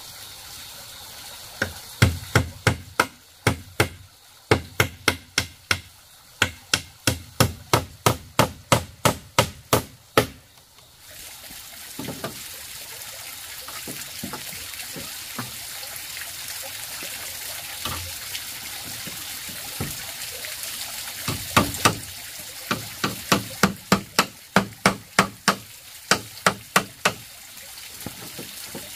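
A hammer driving nails into the wooden frame of a bamboo-slatted shed: quick, even strikes about two to three a second in two long runs, with a pause in between. A steady hiss runs underneath.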